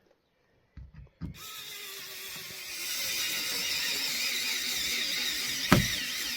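Small electric screwdriver running, driving a screw into an RC car's gearbox casing: a few light knocks as the bit is set, then a steady whirring motor with a wavering whine, and one sharp click near the end.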